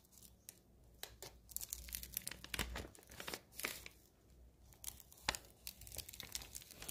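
A hand-made paper bag sealed with tape being torn open by hand: irregular crinkling and tearing of paper and tape, with sharper rips about five seconds in and at the end.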